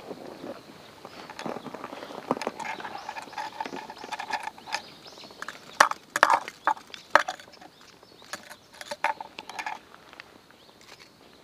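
Handling noise of unhooking a largemouth bass with pliers: irregular clicks, clacks and rattles of the lure's treble hooks and the pliers, loudest in a burst of sharp clacks about six to seven seconds in, with a few short squeaks along the way.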